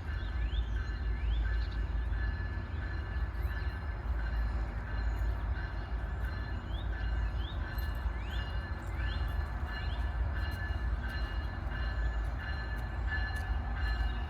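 MARC diesel commuter train running at the station with a deep, steady rumble. A steady high-pitched whine sits over it, with short rising chirps recurring about once a second.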